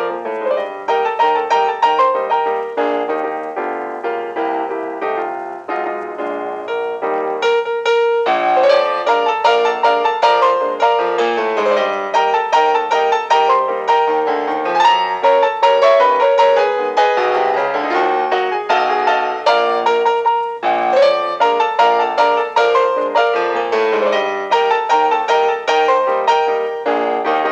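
Background piano music with quick, evenly paced notes.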